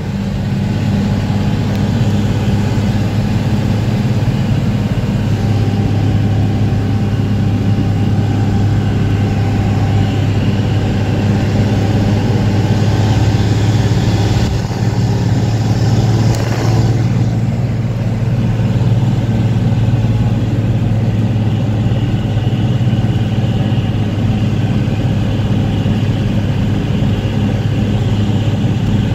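1975 Dodge Bighorn semi tractor's diesel engine pulling steadily on the road, heard from inside the cab as a constant low drone over road noise.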